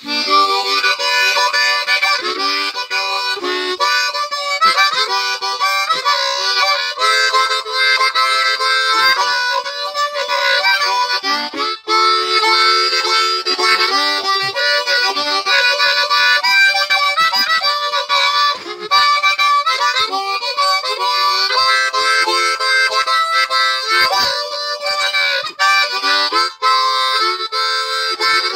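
Solo harmonica played with the hands cupped around it: an upbeat tune of chords and quick note changes, broken only by brief breaths about twelve and eighteen seconds in.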